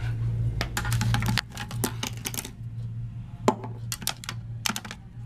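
Irregular sharp clicks and clinks of small hard objects being handled, as toiletry items are rummaged through, over a steady low hum.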